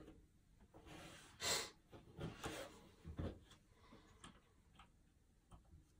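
Cardboard jigsaw puzzle pieces handled on a tabletop: soft scattered clicks and taps as pieces are pressed together, picked up and set down, with a short breath-like hiss about a second and a half in.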